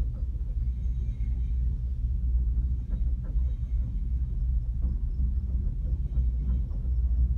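Steady low rumble of an enclosed gondola cabin travelling along its cable, with a few faint ticks and rattles from the cabin.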